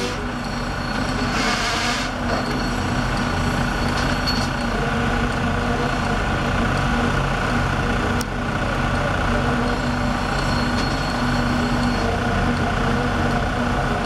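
Construction machinery engines running steadily during a concrete pour, with a brief hiss a little over a second in and a single sharp click about eight seconds in.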